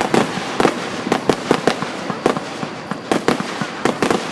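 Fireworks finale: a quick, irregular run of bangs, about three or four a second, over a steady crackle.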